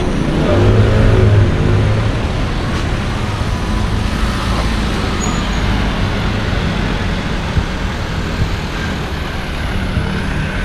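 Street traffic: cars driving past with engines running over a steady road rumble, one engine passing close from about half a second to two seconds in.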